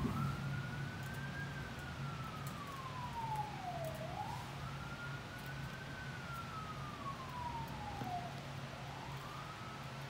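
Emergency-vehicle siren in a slow wail: each cycle rises quickly and then falls slowly, about every four seconds, over a steady low hum.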